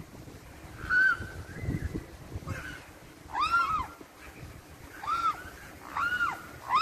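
Juvenile mute swan cygnets giving short high whistling calls, each rising and falling in pitch, about six in a row at roughly one a second, two of them overlapping in the middle.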